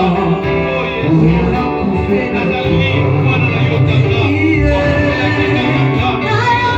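Church worship music: singing over instruments with a steady bass line.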